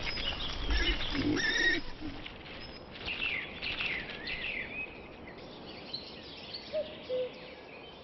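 Woodland birdsong: small birds chirping with quick sweeping notes, busiest a few seconds in, and a low two-note call heard near the end.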